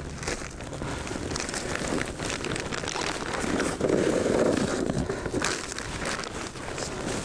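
Plastic bag rustling and crinkling as it is handled while the caught fish are collected into it, louder for a moment about four seconds in.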